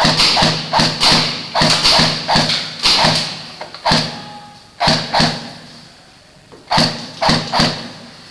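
Airsoft guns firing shot after shot in quick strings of two to three a second, with a pause of about a second near the end.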